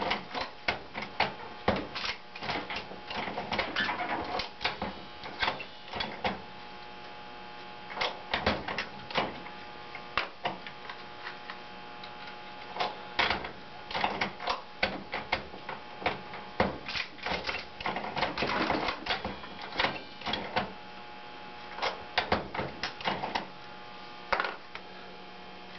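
Turret-style ammunition reloading press being worked by hand: irregular metallic clicks and clacks as the turret is turned and the ram is stroked, with brass cases and components handled between strokes. A faint steady hum runs underneath.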